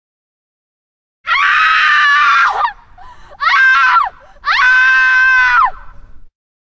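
A screaming-voice ringtone: three loud, high-pitched screams starting about a second in, the middle one shorter, each held level and then dropping in pitch at its end.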